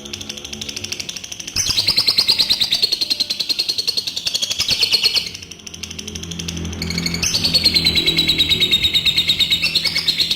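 Adult lovebird's long 'ngekek' chatter: a fast, shrill, pulsing trill in long bouts, one starting about a second and a half in and running about three and a half seconds, another starting near seven seconds and running on. Softer chatter comes before the first bout, with background music underneath throughout.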